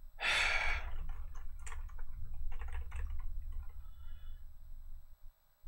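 A short rush of noise about half a second in, then scattered key clicks of typing on a computer keyboard over a low rumble that stops near the end.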